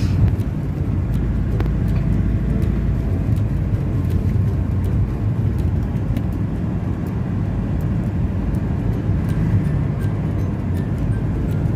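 Steady low rumble of a moving vehicle's road and engine noise, heard from inside the cabin.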